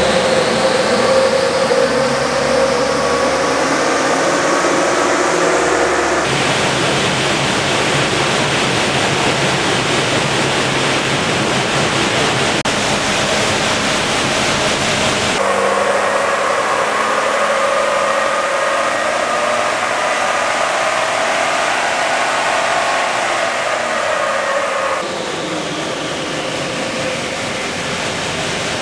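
Toyota Prado 150's 3.0-litre four-cylinder turbo-diesel running under load on a chassis dyno, its engine note climbing through the revs and then dropping back, over a loud steady rush. The sound changes abruptly a few times.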